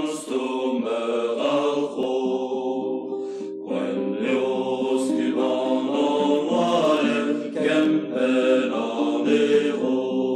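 A group of voices singing a Breton song together, holding and moving between sustained notes without a break.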